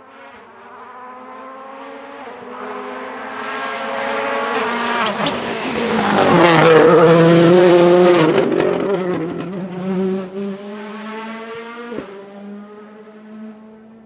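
A WRC rally car's 1.6-litre turbocharged four-cylinder engine approaching at speed, revving hard through the gears. It is loudest about six to eight seconds in, with a few sharp cracks near its peak, then fades as the car drives away.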